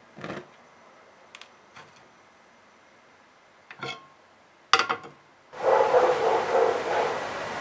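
Frying pan handled on a gas stove: a few knocks and then a sharp clatter of the pan set down on the metal burner grate. From about three-quarters of the way in, a steady rushing hiss of the lit gas burner.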